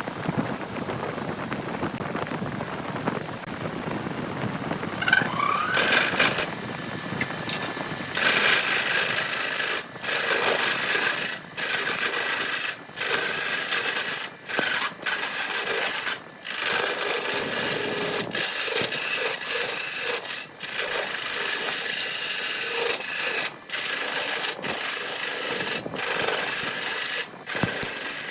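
Abrasive rubbing on wood in repeated strokes, each broken by a short gap about every second or so, growing louder and harsher about eight seconds in.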